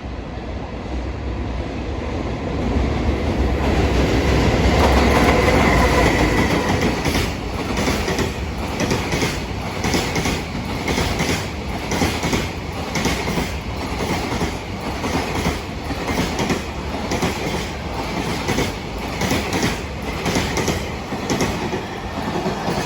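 Freight train passing over jointed rail. A low rumble swells in the first few seconds as the head of the train goes by, then the wagons' wheels clatter over the rail joints in a steady, repeating clickety-clack.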